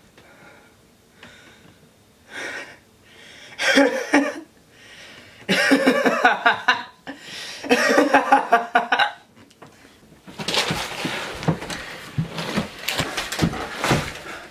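A man's breathy, manic laughter in four bursts that grow louder, followed from about ten seconds in by a stretch of scuffling and clicking noise.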